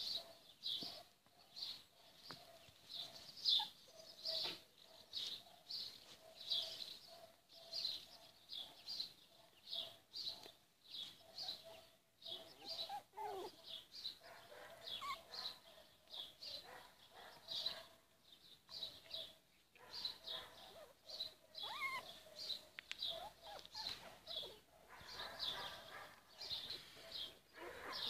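A steady run of short, high chirps, about one or two a second, with a young puppy giving a few brief whimpers now and then.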